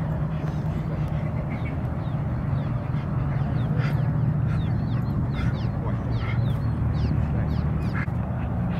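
Animal calls: a few short, sharp calls with many quick descending chirps between them, over a steady low rumble.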